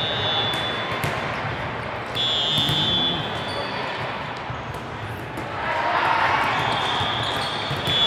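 Referee whistles in a large gym: a short shrill blast at the start, another about two seconds in, and a longer one near the end, over the sharp smacks of volleyballs being struck and the chatter of players and spectators, which swells about six seconds in.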